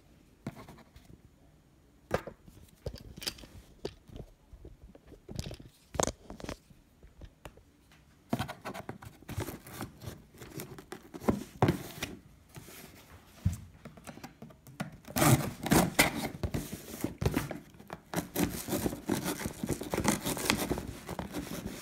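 A knife cutting through packing tape on a cardboard shipping box: scattered scrapes and clicks at first, then a long stretch of dense tearing and scraping of tape and cardboard starting about two-thirds of the way in.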